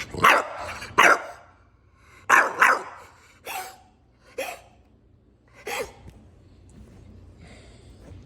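Dog coughing in a run of seven short, harsh, bark-like hacks over about six seconds.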